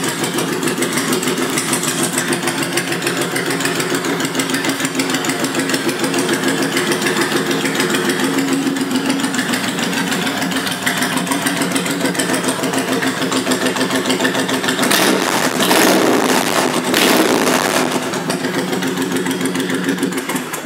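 2005 Honda VTX1800F's big V-twin idling steadily through Vance & Hines aftermarket exhaust pipes, with a fast, even pulse. It grows louder for a few seconds about three-quarters of the way through.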